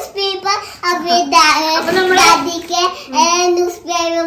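A young child's voice singing in short, high-pitched, sing-song phrases with held notes.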